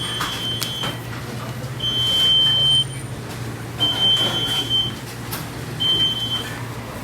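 An electronic beeper sounding a steady high beep about a second long, four times at roughly two-second intervals, with light clatter in between.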